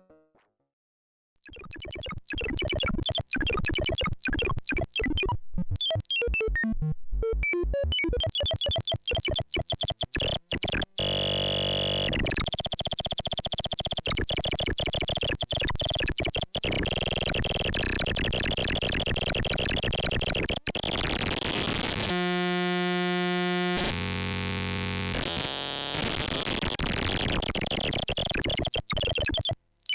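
CubuSynth Engine dual analog oscillator module (3340 VCO chips) playing harsh, noisy modulated tones. After a short silence a rapid stuttering pattern fades in, and about a third of the way in it gives way to dense buzzing drones, with a plain steady pitched tone for a couple of seconds near two-thirds through.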